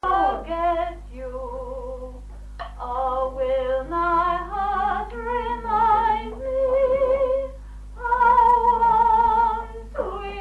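A woman singing a slow song unaccompanied, holding long notes with a wide vibrato in short phrases. The old 1963 home recording carries a steady low hum underneath.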